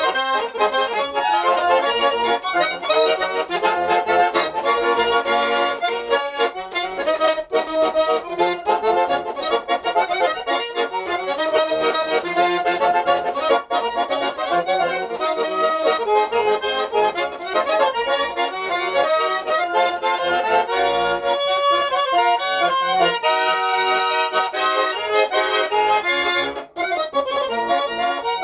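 Nizhny Novgorod garmon, a Russian diatonic button accordion, played solo by ear. It carries a continuous improvised folk melody over chords, with a momentary break about two seconds before the end.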